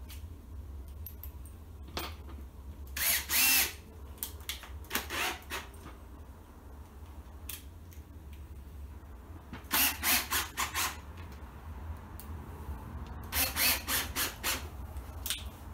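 Power drill driving screws into a Nuplas plastic beehive box, in four short bursts.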